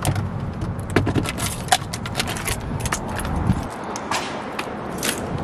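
Clicks, knocks and rustling of a baby stroller frame and car interior being handled while the car is loaded, over a low rumble that drops away about two-thirds of the way through.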